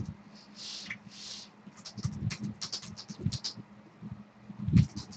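Irregular rapid clicking of typing on a computer keyboard, with two short hissing sounds about a second in.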